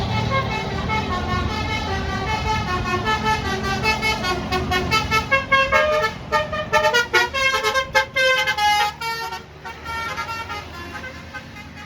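Indonesian tour bus's Basuri 'telolet' musical horn playing a quick tune of short stepped notes, over the low running of the bus engine. The tune thins out and gets quieter about two-thirds of the way through.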